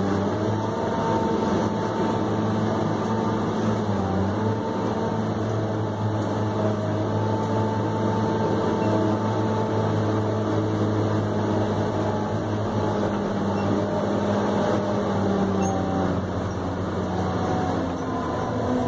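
New Holland RG140 motor grader's diesel engine running steadily under load as the grader works, heard from inside the cab, its pitch dipping and rising slightly a few times.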